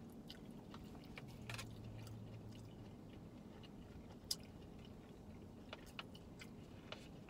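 Quiet chewing of a burrito bowl meal, with scattered light clicks of forks against takeout bowls, the sharpest about four seconds in, over a low steady hum.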